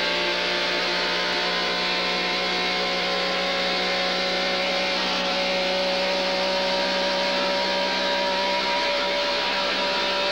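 Soundtrack music made of held, droning tones over a steady hiss, with no clear beat.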